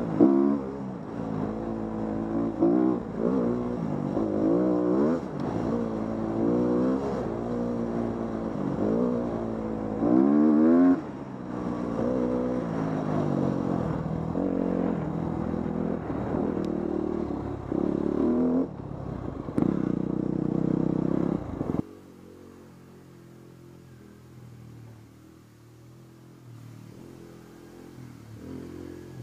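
Dirt bike engine revving up and falling back again and again as it is ridden on a trail. Near the end it drops suddenly to a quiet, steady low idle.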